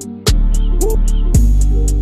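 Background music with a steady beat: sustained deep bass notes under sharp drum hits.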